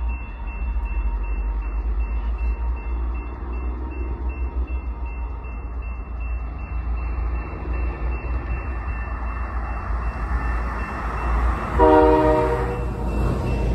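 Railroad grade-crossing warning bell ringing steadily over a low rumble as a freight train approaches. About twelve seconds in, the locomotive sounds one short horn blast while a car passes.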